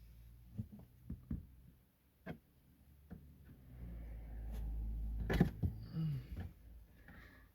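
Scattered plastic clicks and knocks of hands and a tool working at car dashboard trim clips. A low rumble swells through the middle, and the sharpest knock comes about five and a half seconds in.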